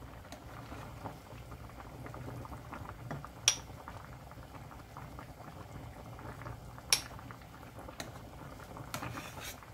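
Spicy cod stew bubbling at a steady boil in a stainless steel pot, with sharp clinks of a metal ladle against the pot as the foam is skimmed off. The two loudest clinks come about three and a half and seven seconds in.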